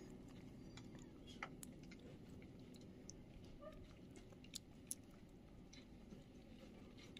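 Faint, sparse licking and smacking clicks of a kitten eating lickable cat treat paste, over near silence, with a few slightly louder clicks in the middle.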